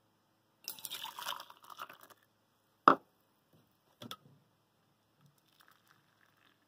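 Water poured from a plastic measuring cup into a stainless steel cup for about a second and a half, then one sharp knock as the cup is set down on the wooden table, the loudest sound, and a couple of lighter clicks. Near the end, a faint trickle as water starts pouring from a kettle into the measuring cup.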